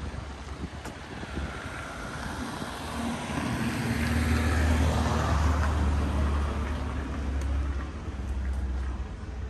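A car driving past on the street, its engine rumble and tyre noise swelling to a peak about halfway through, then fading.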